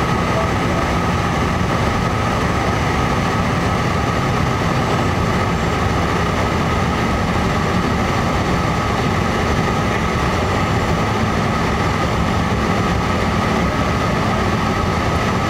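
Steady cabin noise of a Learjet 55 during its landing approach: the twin turbofan engines and the airflow rush, a constant drone with a steady higher tone over it.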